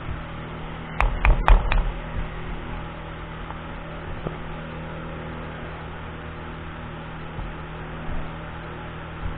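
A few sharp clicks of metal parts of an Ekol Tisa pistol being handled during disassembly, four in quick succession about a second in, over a steady low hum.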